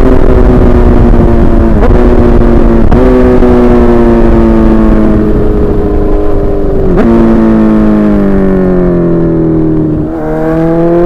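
Suzuki GSX-R1000 inline-four engine running loud, its revs falling slowly with a few brief breaks in the note, then rising again near the end as it picks up speed.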